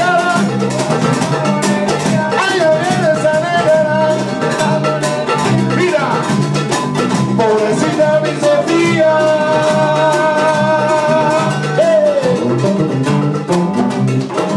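Live salsa-style Latin band playing: acoustic guitar, electric bass and hand percussion keep a steady, busy rhythm under long held melody notes that waver and slide.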